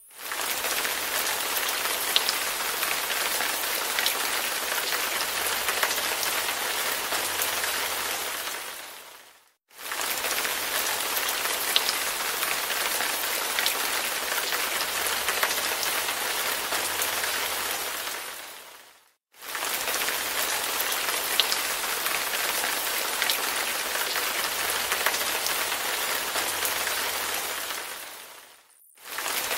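Steady rain sound with scattered drop ticks, played as a loop about ten seconds long that fades out and back in twice.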